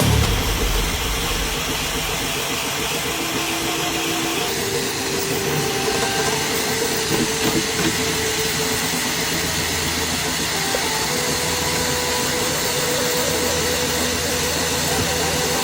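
Flashforge AD5X 3D printer running: a steady fan hiss with short stepper-motor tones that change pitch every second or so as the print head moves.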